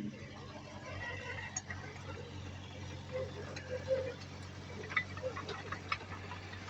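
Heavy earthmoving machine's diesel engine running steadily, with scattered sharp clicks and clanks over it.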